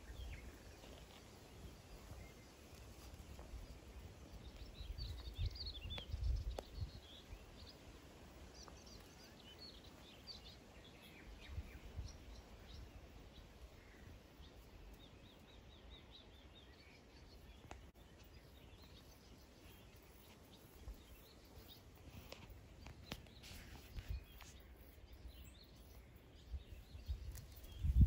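Faint outdoor ambience: scattered small bird chirps over a quiet hiss, with occasional low rumbles, the strongest about a quarter of the way in.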